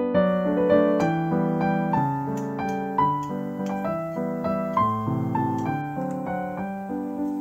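Background piano music: single notes and chords struck at a moderate, even pace, each fading after it is struck.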